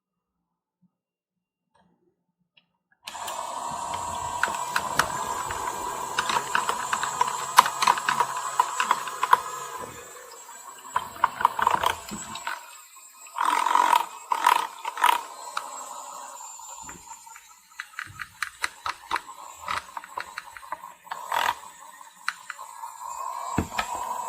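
Small motor of a toy washing machine whining steadily, with many irregular clicks and rattles from the drum and its load. The whine stops about ten seconds in, loud clattering follows, and the whine comes back near the end.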